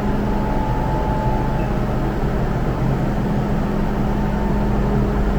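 MTR M-train standing at the platform, a steady hum and rumble with a constant low tone and a fainter higher tone.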